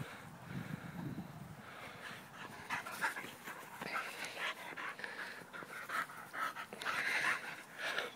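A dog panting close to the microphone in short, irregular breaths, a little louder near the end.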